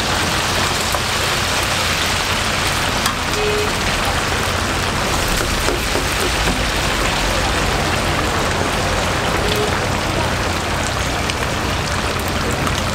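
Hot oil in a commercial deep fryer sizzling and bubbling steadily around whole chickens, with a few faint clicks.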